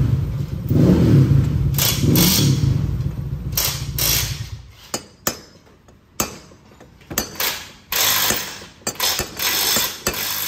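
A low, engine-like rumble pulsing about once a second for the first four seconds or so, then a string of irregular sharp metal knocks and scrapes as the worn steering head bearing of a Honda PCX 160 is knocked loose with a striking tool.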